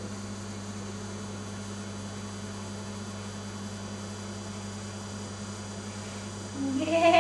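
Steady electrical mains hum. Near the end a voice starts a long drawn-out vocal sound that rises in pitch and then holds.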